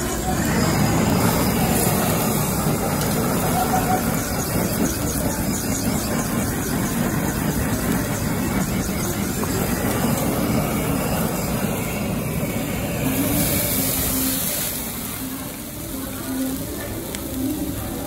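Handheld butane blowtorch on a gas canister, its flame rushing with a steady hiss as it sears a slab of meat on a tabletop grill. The hiss eases off about three-quarters of the way through.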